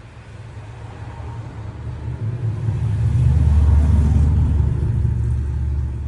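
A deep low rumble that builds over about three seconds, peaks a little past the middle, then eases off.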